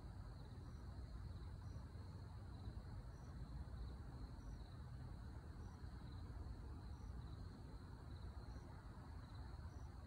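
Faint, evenly repeated high chirps, about two a second, like crickets chirping at night, over a steady low rumble of background noise. No owl hoot stands out in this stretch.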